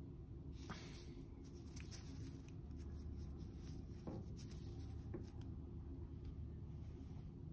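Faint rustling and light clicks of disposable-gloved hands handling a smartwatch, over a steady low hum. The handling noises thin out after about five seconds.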